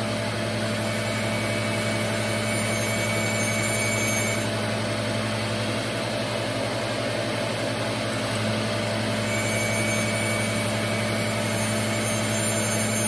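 Surface grinder running steadily, its wheel taking the last few thousandths off a block on the magnetic chuck as the table traverses back and forth. A faint high ring comes in twice, a few seconds apart.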